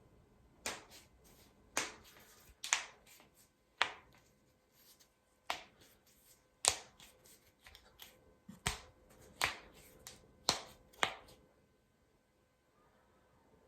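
Finger and shoulder joints being cracked on purpose. About ten sharp pops come irregularly, a second or so apart, some with a smaller crack close behind. They stop a couple of seconds before the end.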